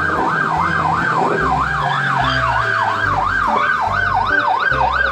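Police car's electronic siren in yelp mode: a fast rising-and-falling wail, about three sweeps a second, steady throughout.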